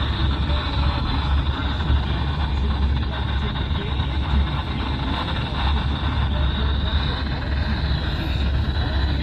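Steady radio static with a strong low hum from a weather radio receiver, with no voice on the channel.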